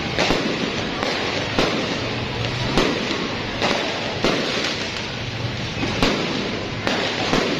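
New Year's fireworks going off: sharp bangs at uneven intervals, about one a second, over a continuous noisy background.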